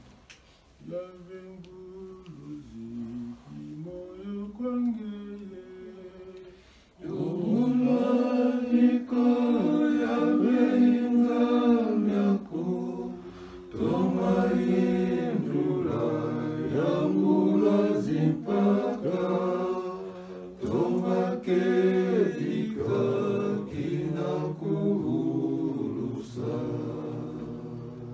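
People singing a hymn together without instruments, in long held notes. The singing is soft for the first several seconds, then swells louder about seven seconds in.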